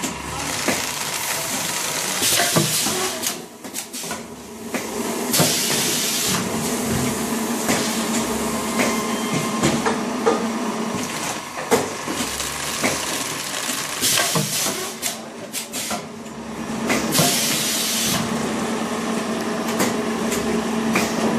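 Vertical form-fill-seal packaging machine running: a steady mechanical hum with repeated clicks and knocks from the mechanism, broken every few seconds by bursts of air hiss from its pneumatic cylinders.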